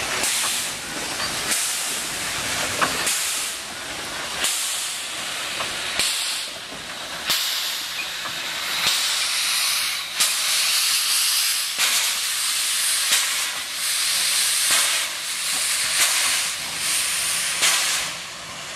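Steam locomotive's open cylinder drain cocks blowing off steam in a loud, continuous hiss that surges in strength about every one to one and a half seconds.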